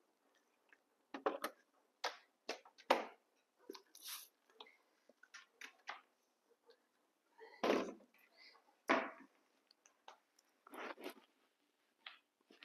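Irregular short knocks and clicks of kitchen items being handled during food preparation, with a few louder knocks scattered through.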